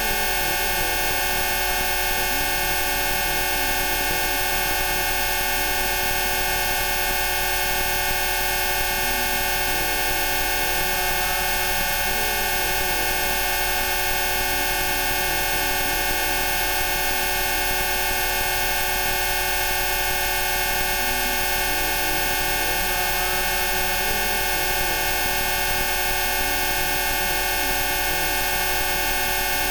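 Dense, unchanging chord of many steady electronic tones, from very low to very high pitch, making up a Rife-frequency healing tone track. Fainter tones slowly waver up and down beneath it.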